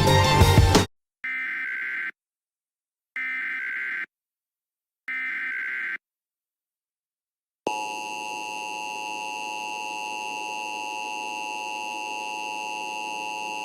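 Music cuts off about a second in, followed by an Emergency Alert System SAME header: three identical screeching data bursts, each about a second long and a second apart. After a short silence, the steady two-tone EAS attention signal begins a little past halfway and holds without change.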